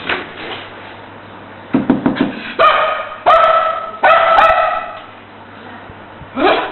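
A dog growling, then barking three times in quick succession, each bark held for about half a second, with a short rising yelp near the end. These are the aggressive growls and barks of a dog that is getting increasingly aggressive.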